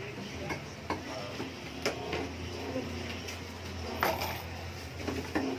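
Cleaver chopping fish on a chopping block: a handful of sharp, irregular knocks, the loudest about four seconds in.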